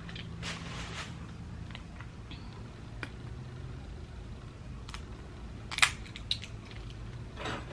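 Dungeness crab shell being cracked and picked apart by hand: sparse small clicks and crunches, with one louder crack about six seconds in.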